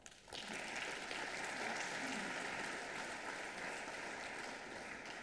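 Audience applauding at the close of a keynote speech, starting about a third of a second in and tapering off near the end.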